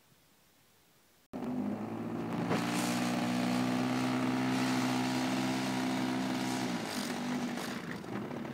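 Model airplane engine running steadily at close range. It cuts in suddenly just over a second in and drops to a lower, quieter note near the end.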